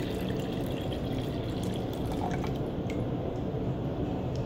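Water pouring from a plastic graduated cylinder into a cut soda bottle, trickling and dripping. The stream thins to drips about halfway through as the cylinder is drained.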